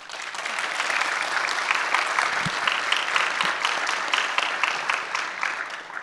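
Audience applauding, building up over the first second and dying away near the end.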